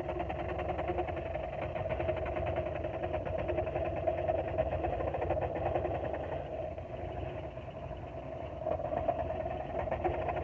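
Porter-Cable scroll saw running, its blade stroking rapidly as it cuts through a board that is fed and turned by hand. A steady machine hum, dipping slightly about two-thirds of the way through.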